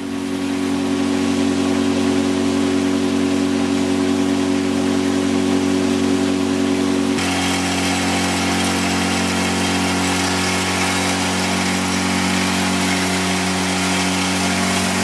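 Outboard motor of a small boat running steadily at speed. About seven seconds in, the engine note shifts suddenly to a different steady pitch.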